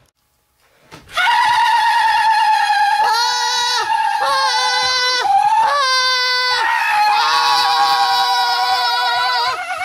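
A person screaming in long, high, wavering cries broken by short pauses. It starts about a second in, after near silence.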